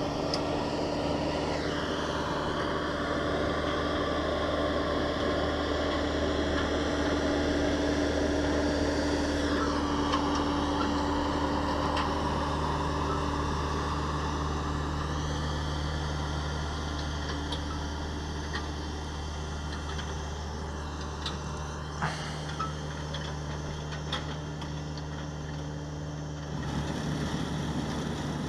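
John Deere 6420 tractor running at a steady engine speed as it drives a New Idea corn picker through the rows picking ear corn, with a shift in the sound near the end.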